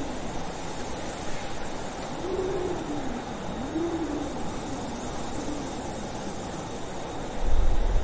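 Blizzard wind blowing steadily, with a howling tone that rises and falls a couple of seconds in. A louder low rumble of a gust comes near the end.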